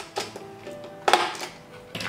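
Light background music with steady held notes. About a second in there is a sharp snip and crackle of packaging as scissors cut a toy free of its cardboard box, with a few lighter clicks around it.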